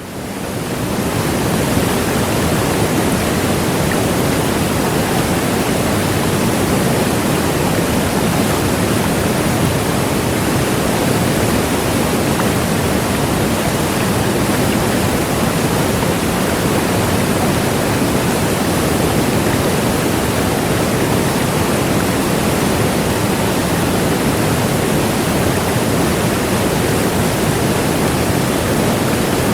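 Large waterfall: a loud, steady rush of falling water. It fades in over the first second or two.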